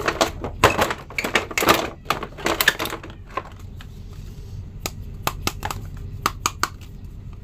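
Clear plastic wrapping crinkling and rustling while plastic action figures are picked up and handled, with sharp clicks and clacks of hard plastic. It is busiest in the first three seconds, then thins to scattered clicks.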